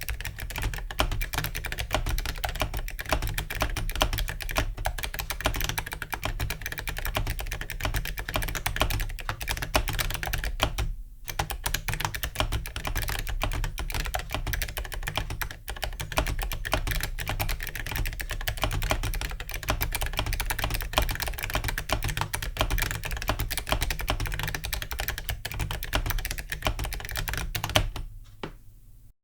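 Fast, continuous typing on a mechanical keyboard with ZealPC Clickiez switches and Awekeys metal keycaps, the keystrokes clattering in a roomy 8BitDo keyboard case. There is a brief pause about eleven seconds in, and the typing stops just before the end.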